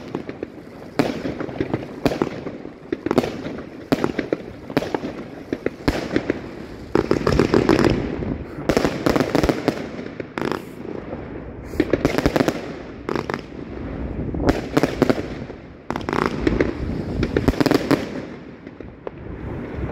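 A 150-shot consumer fireworks cake, Evolution Fireworks' Mayhem, firing: rapid volleys of launch thumps and sharp bursts in clusters, with no real break, swelling twice.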